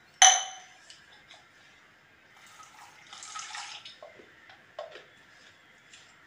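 A ringing metallic clink just after the start, then water swishing inside a mixer-grinder jar as it is shaken to rinse out the leftover chutney, with a few light knocks near the end.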